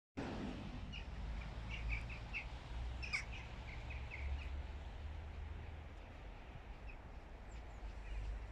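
Small birds chirping, a quick run of short high chirps in the first few seconds and a few scattered ones later, over a steady low rumble.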